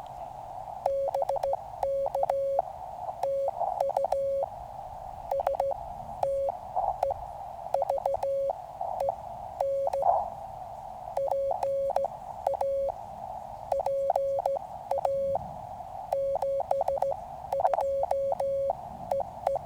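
Morse code (CW) from a QCX mini transceiver: a single steady tone keyed in short and long elements, sent in groups with short pauses. A steady band of receiver hiss runs underneath.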